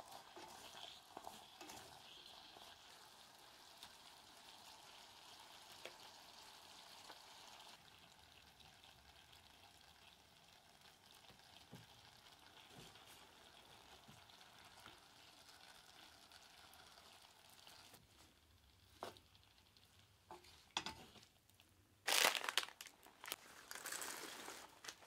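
Vegetables frying faintly in a small iron pot over charcoal, with a steady low sizzle and the odd light tap of chopsticks. Near the end, dried roasted soybeans are poured into a small wooden masu box: a loud, brief rattling pour, then more rattling.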